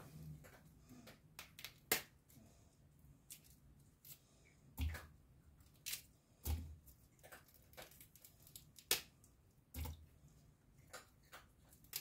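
Irregular light clicks and soft knocks of household items being handled and set down, several spaced a second or more apart, some with a dull thud.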